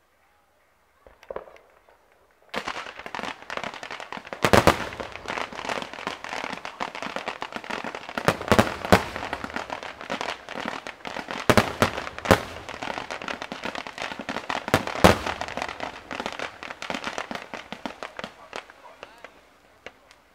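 Fireworks going off: after a short quiet start, a dense crackle with loud bangs scattered through it, dying away near the end.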